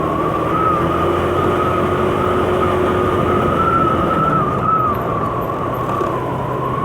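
A 125cc motor scooter running steadily under way, with road and wind rush. Over it sits a steady high-pitched whine that wavers slightly in pitch.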